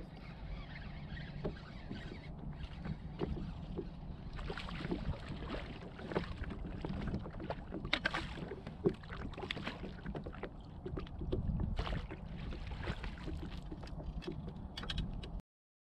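Water splashing and lapping at a kayak's side as a fish is netted with a long-handled landing net, over a steady low rumble of wind on the microphone. Many short clicks and knocks, with one sharper knock about nine seconds in; the sound cuts off suddenly near the end.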